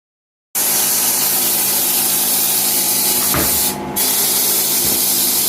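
Loud steady hiss of pressurised gas escaping, starting about half a second in, with a brief break about three and a half seconds in.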